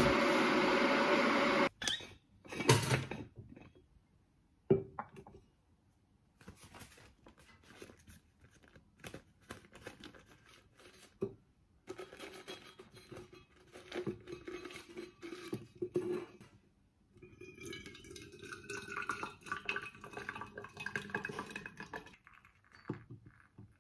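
Kitchen handling sounds: clinks and knocks of jars, a thermos flask and its lid as a tea bag is put in. Near the end, hot water is poured from a stainless steel kettle into the thermos flask. A steady rush at the very start stops abruptly about two seconds in.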